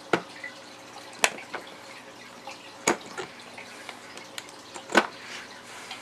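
Four sharp clicks and taps, spaced a second or two apart and the last the loudest, as hands work crimp wire connectors on the switch terminals of a plastic tackle box lid.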